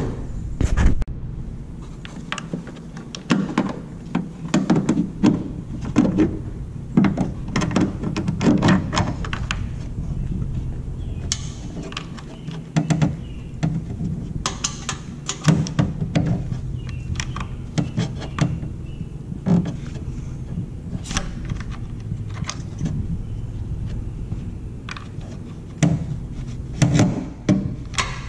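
Hand tools and metal hardware being worked under a car at the transmission mounts: irregular clicks, clinks and knocks, some in quick clusters, over a steady low hum.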